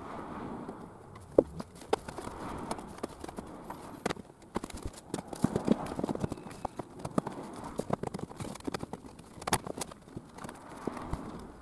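Irregular knocks, clicks and rustling of hands handling the wooden seat-base panels and cables under a caravan seat as it is put back together. The sharpest knocks come about a second and a half in and again near the end.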